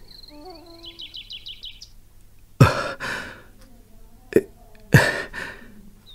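Birds chirp in short rapid trills, then a person takes three loud, sharp gasping breaths about a second or two apart, the first and last trailing off.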